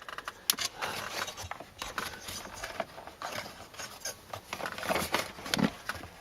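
Hands handling vacuum lines on a climate control assembly: scattered light clicks, taps and rubbing, spread irregularly.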